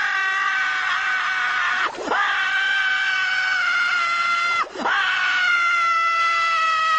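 Squidward's scream sound effect: one long, loud, high cartoon scream, held with its pitch sagging slowly, broken twice by a short swoop down and back up, about two seconds and just under five seconds in.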